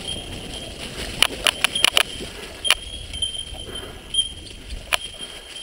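Mountain bike clattering down a rough dirt trail: irregular sharp clacks as it hits bumps, over a thin, steady high tone.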